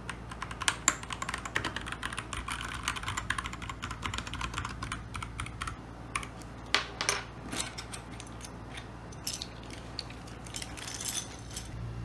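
Keychron K2 mechanical keyboard with tactile brown switches being typed on: a quick, dense run of keystrokes for about five seconds, then a few scattered, louder key presses.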